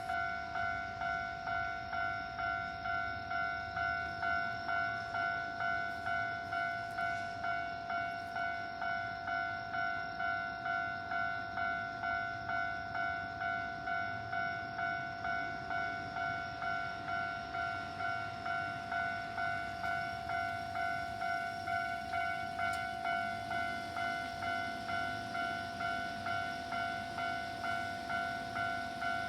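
Japanese railway level-crossing warning bell ringing steadily, an electronic two-tone ding repeating at a quick even beat: the signal that a train is approaching and the crossing is closed.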